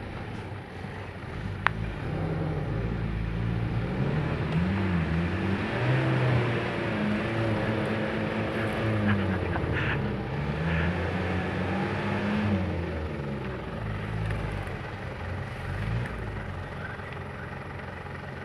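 Loaded pickup truck's engine revving up and down as it pulls through deep, rutted mud, its note rising and falling again and again and loudest in the middle stretch. A single sharp click near the start.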